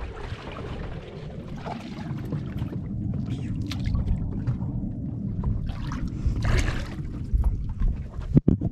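Wind buffeting the microphone and water moving against a small boat's hull, a low steady rumble, with a brief louder hiss about six and a half seconds in. A couple of sharp knocks near the end.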